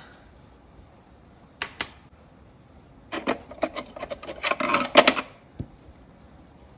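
Light clicks and taps of small objects handled on a work table: a pair of sharp clicks about a second and a half in, then a quick run of clicks and taps lasting about two seconds as a small metal nail-art tool is picked up.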